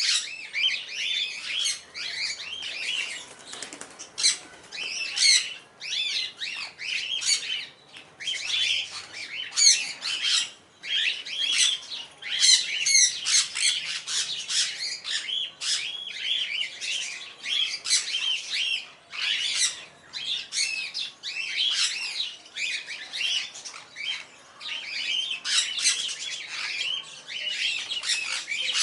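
A flock of small caged parrots chattering: many overlapping chirps and squawks, dense and continuous.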